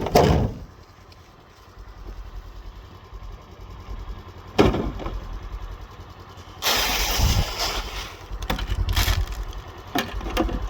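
A motor vehicle's engine running at idle with a low, steady rumble. A few sharp knocks land on top of it, and about seven seconds in there is a second-long burst of rushing noise.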